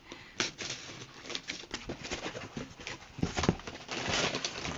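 A taped cardboard shipping box being opened by hand: irregular taps, scrapes and rustles of tape and cardboard, with a louder flurry about three seconds in.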